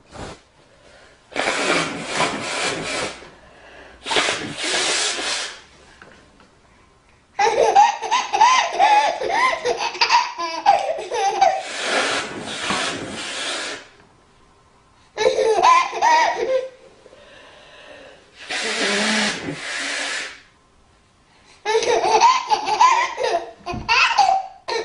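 A woman blowing her nose several times in noisy bursts of a second or two each. Between them a baby laughs in long fits.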